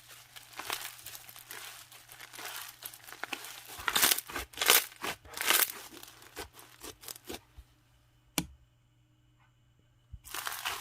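Translucent slime being squished and stretched by hand, giving irregular crackling pops and squelches, loudest about four to six seconds in. Near the end it goes almost quiet for about two seconds, broken by a single sharp click, before the crackling starts again.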